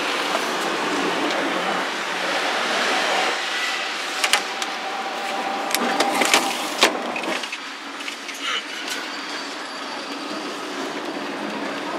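Hong Kong double-decker electric tram running along its street tracks, heard from the upper deck: a steady rattling rumble of the car, with a few sharp knocks between about four and seven seconds in.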